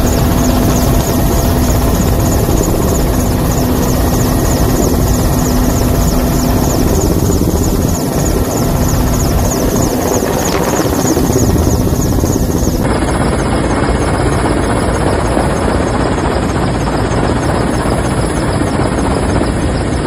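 Helicopter engine and rotor noise heard from inside the cabin: a loud, steady drone with a fast, even pulsing. The sound changes abruptly about thirteen seconds in.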